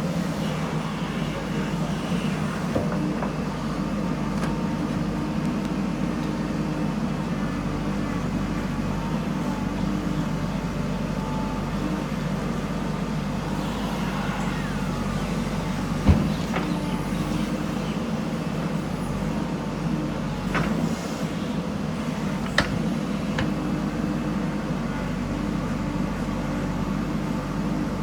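JCB backhoe loader's diesel engine running steadily under working load while it digs and loads soil. A sharp knock comes about halfway through and a smaller clack a few seconds later, typical of the bucket and metal parts striking.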